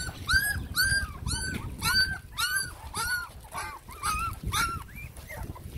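A newborn puppy crying in a steady series of short, high whimpers that rise and fall in pitch, about two a second.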